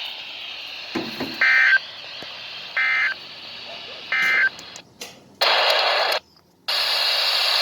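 Emergency Alert System end-of-message data bursts from an alert receiver: three short warbling digital tone bursts, about 1.3 seconds apart, marking the end of the broadcast warning. Two longer bursts of radio static hiss follow in the second half.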